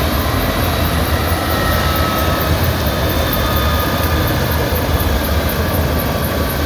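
Light helicopter running on the ground with its main rotor turning: a steady loud rumble and roar with a faint high turbine whine.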